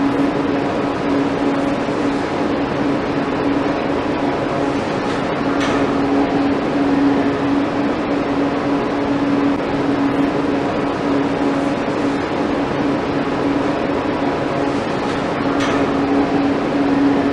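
A steady low hum over a constant hiss, with two faint brief sounds about six and sixteen seconds in.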